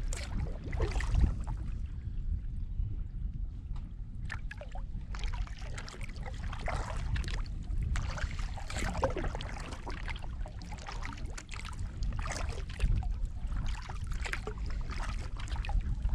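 Kayak paddle strokes on calm water: repeated splashes as the blades dip, with water dripping off them between strokes, over a low rumble.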